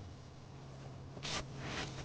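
Two short rustling swishes of things being handled, the first a little over a second in and a softer one just after, over a faint low hum.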